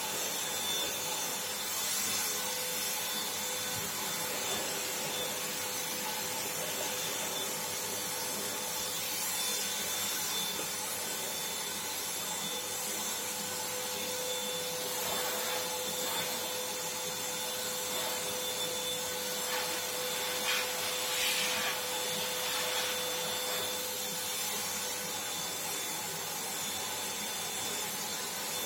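Black & Decker HVLP400 electric paint spray gun running while spraying: a steady motor whine over a hiss.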